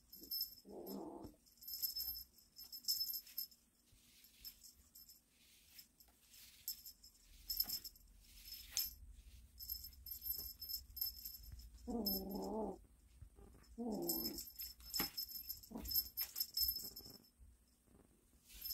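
Small jingle bell on a wand cat toy jingling in short, repeated shakes as the toy is flicked about for a pouncing kitten, with three short cat calls, the longest near the middle.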